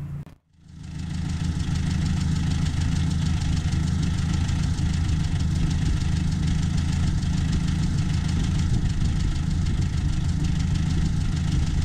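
Ford Jubilee/NAA tractor's four-cylinder gasoline engine running at a steady speed, starting about half a second in.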